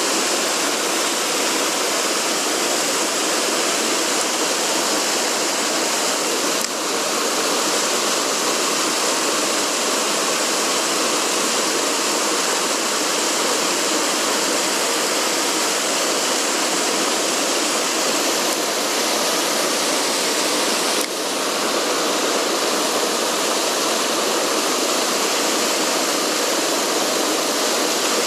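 Mountain stream water rushing over rocks, a loud steady rush that dips briefly twice.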